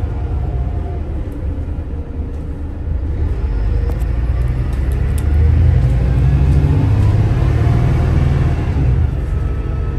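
Volvo B8RLEA bus's diesel engine and ZF Ecolife automatic gearbox pulling under acceleration, the engine note climbing from about three seconds in and loudest through the middle, then easing slightly near the end.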